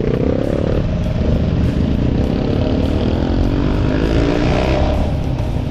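Motorcycle engine accelerating under way. Its pitch climbs briefly, breaks about a second in, then rises steadily over the next few seconds.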